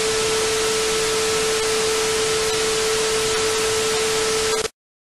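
Television static hiss with a steady test tone held under it, as with a colour-bar test signal; both cut off suddenly near the end.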